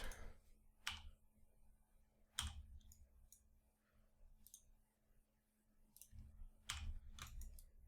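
Faint, irregular clicks of a computer mouse and keyboard, about half a dozen spread over the stretch, over a low steady hum.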